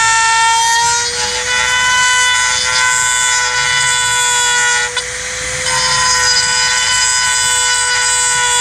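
A high-speed rotary tool running at a steady high whine, briefly bogging with a gritty hiss about five seconds in as it bites into the part.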